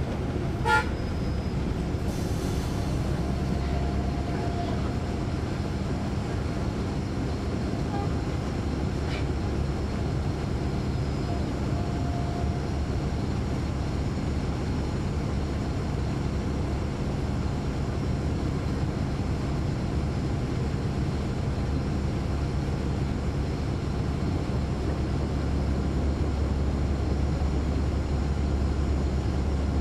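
Interior sound of a 2009 NABI 416.15 (40-SFW) transit bus with its Caterpillar C13 ACERT diesel engine running, a steady low rumble. There is a sharp click about a second in, and the low rumble grows stronger near the end.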